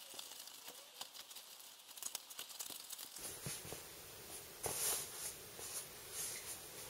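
Packing foam crinkling and crackling in many quick clicks as a 3D-printer motor is pulled out of its cushioning, then rustling against a foam sheet as the motor is handled, loudest about five seconds in.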